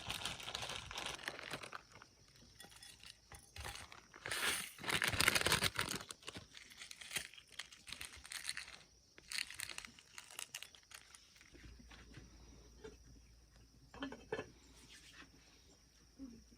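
Irregular rustling and crinkling of something being handled, loudest in a burst from about four to six seconds in, then sparser crackles.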